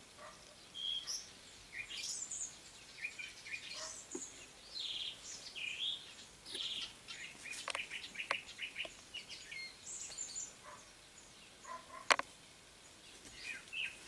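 Small birds chirping and twittering in many short, high calls, with one sharp click about twelve seconds in.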